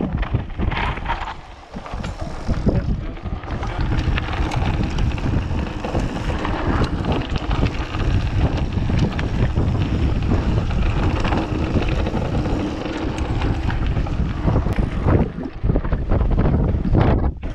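Mountain bike ridden fast down a dirt trail, heard through an action camera's microphone: wind rushing over the mic, tyre rumble and frequent knocks and rattles from the bike. The noise briefly drops away about two seconds in and again near the end.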